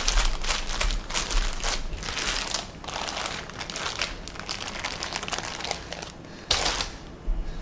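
Plastic wrap on a bamboo sushi rolling mat crinkling and crackling as the mat is squeezed around a sushi roll and peeled off, with one louder crinkle near the end.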